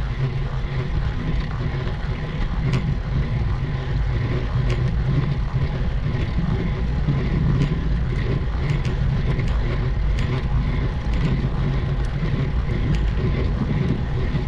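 Steady low rumble of a road bike climbing a steep grade in a low gear, with scattered sharp clicks.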